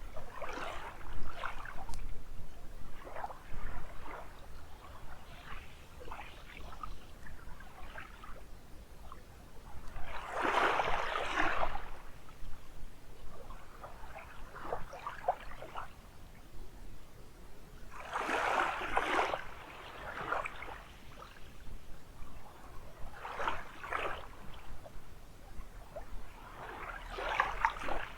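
Small waves lapping onto a sandy beach, a bigger wash coming in about every eight seconds with lighter splashes between.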